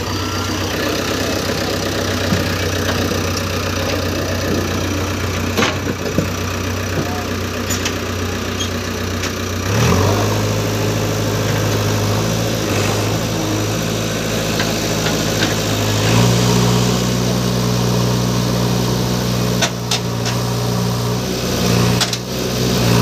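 JCB 3DX backhoe loader's diesel engine running steadily, then revving up about ten seconds in and again about sixteen seconds in as the backhoe arm is worked under load against the stuck truck.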